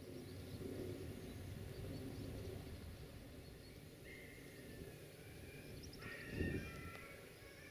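Outdoor ambience: a steady low rumble with birds chirping in short calls over the second half. A brief low swell about six and a half seconds in is the loudest moment.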